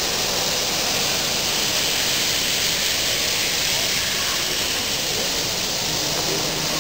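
Steady background din of a busy exhibition hall: a continuous, even wash of noise with no distinct events standing out.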